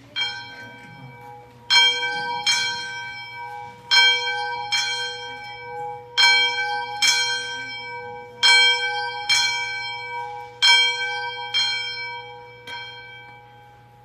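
Church bell ringing, about a dozen strokes at a steady pace of roughly one a second, each ringing on and fading; the last stroke dies away near the end.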